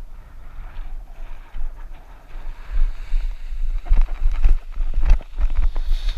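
Strong wind buffeting the microphone in gusty low rumbles, with a quick run of sharp knocks and rustles from about four seconds in.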